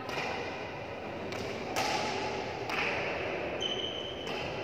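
Badminton rally: rackets striking the shuttlecock, several sharp hits roughly a second apart. A brief high squeak comes about three and a half seconds in.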